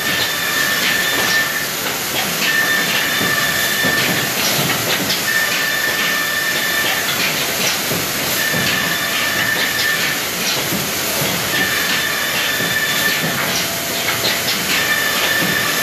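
Woodworking machine and its dust extraction running steadily in a particleboard shop, a constant hiss with scattered clicks. About every three seconds a high whine rises for roughly a second as boards are fed through.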